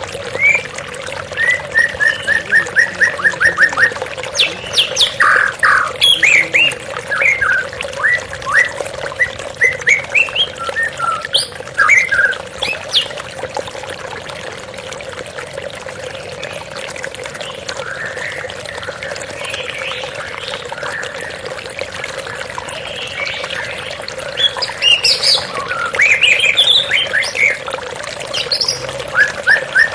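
Songbirds chirping and calling in quick runs of short notes, over the steady sound of flowing water. The calls thin out through the middle and pick up again near the end.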